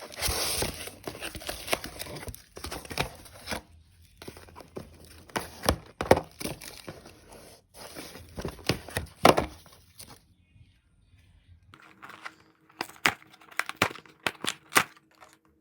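Plastic snack packaging being handled, crinkled and torn open, with many sharp crackles and clicks. There is a short pause about two thirds of the way through.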